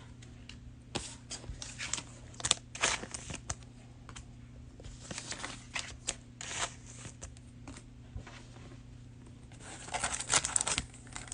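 Trading cards being handled, with scattered short rustles and clicks of card stock and a cellophane pack wrapper. A denser run of crinkling near the end as the next pack is torn open. A faint steady low hum runs underneath.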